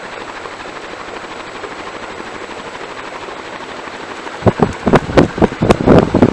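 King of Fans Harbor F series ceiling fan, a Caribbean Breeze copy with 52-inch metal blades, running on high speed: a steady rush of moving air. About four and a half seconds in, loud irregular thumps start over it.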